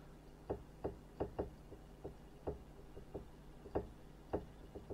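Voice-coil actuator of an Axon GenePix 4000B microarray scanner's scan stage, driven back and forth blindly by a function-generator sine wave and knocking against its end stops: a string of light knocks, about two a second, uneven in spacing and strength.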